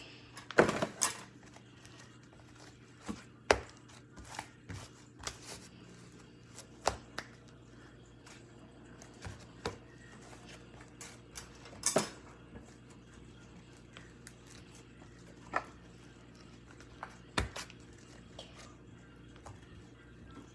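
Slime being handled and reworked by hand: irregular short clicks and small pops, a few of them louder.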